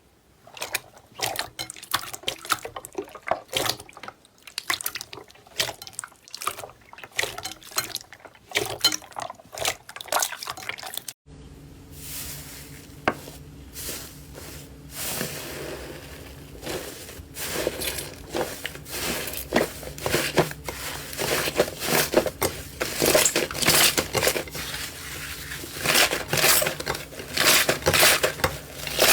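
Slime being squeezed, poked and stretched by hand: irregular wet, sticky clicks and squelches. About eleven seconds in, the sound cuts to a denser crackling run of squishes over a faint steady hum, growing louder near the end.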